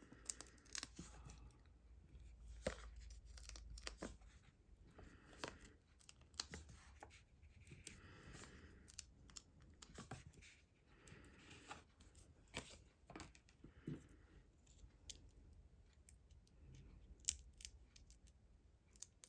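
Foam adhesive dimensionals being peeled off their backing sheet and pressed onto a paper die-cut fish: faint peeling, paper rustling and scattered small clicks.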